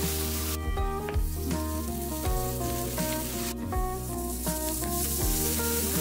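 Food sizzling in a large wok, loud at the start and again from about three and a half to five seconds in, over background music.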